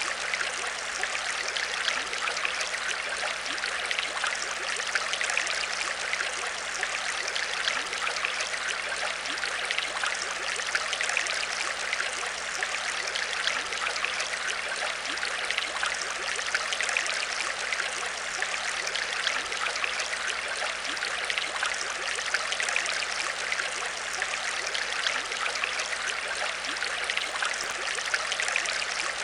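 Aquarium water trickling and splashing steadily, with a faint steady low hum underneath.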